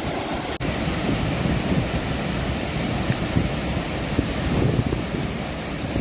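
Steady, loud rush of floodwater released through dam gates, with wind buffeting the microphone; a momentary break about half a second in.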